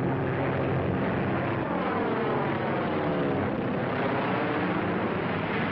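Propeller warplane engine droning in a low pass over the sea, its pitch sweeping down and then back up across the middle as the plane comes in on a bombing run.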